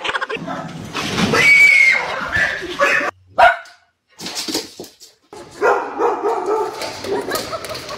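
Dogs barking in short separate bursts, with a rising yelp about a second and a half in and a near-silent gap around the middle.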